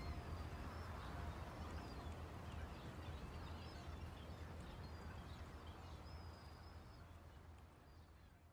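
Faint outdoor ambience of birds chirping over a low, steady rumble, gradually fading out through the second half.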